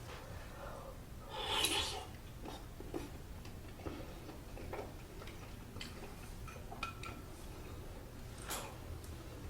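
Eating spicy army stew (budae jjigae): a loud slurp about a second and a half in and another near the end, with soft clicks and small eating noises between.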